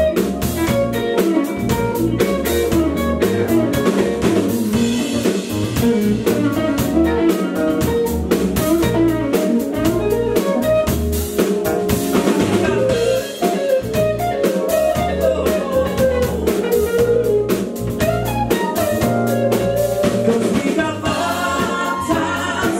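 Live band playing: electric guitar, keyboard, bass guitar and drum kit, with voices singing.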